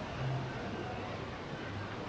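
Distant crowd murmur from the busy walkways below, with a low hum that swells twice.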